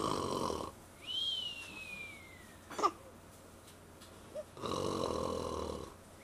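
A man snoring: two rasping snores about four and a half seconds apart, each followed by a high whistling tone that slides slowly down in pitch.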